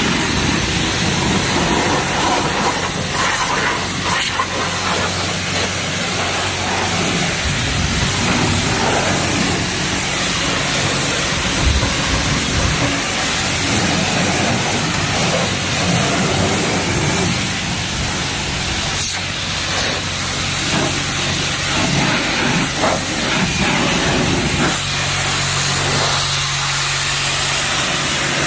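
High-pressure wand at a self-serve car wash spraying water, a continuous hiss with a steady low hum beneath it.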